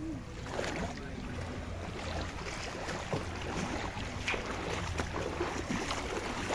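Shallow seawater sloshing and lapping among rocks, with scattered small splashes, over a steady rumble of wind on the microphone.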